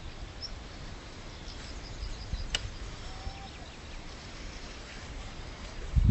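Outdoor ambience: wind rumbling on the microphone, with faint bird calls, including a short run of chirps about two seconds in. A louder rumble comes right at the end.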